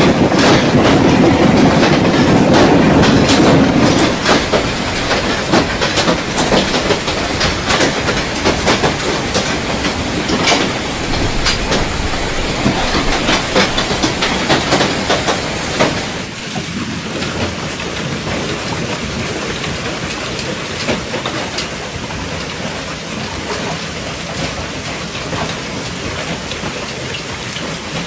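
Hailstones pelting down in a hailstorm: a dense, loud rattle of many hard impacts on surfaces. About 16 seconds in it changes to a somewhat quieter, thinner clatter.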